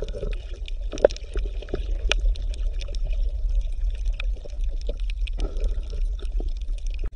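Underwater ambience: a steady low rumble under a bubbling, gurgling wash of water with scattered small clicks, one sharper click about a second in.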